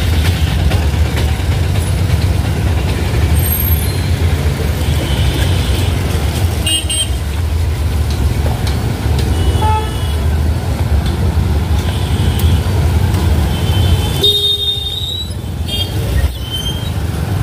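Traffic noise from a road jam, a heavy low rumble of vehicles, with several short vehicle horn toots sounding at intervals.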